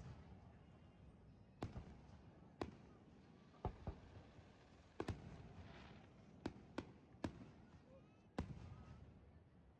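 Aerial firework shells bursting: about nine sharp booms at irregular intervals, roughly one a second, each trailing off in a low rumbling echo.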